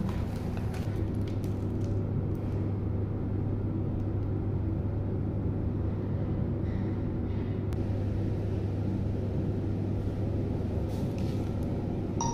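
Steady low machine hum, even throughout, with a few faint light clicks.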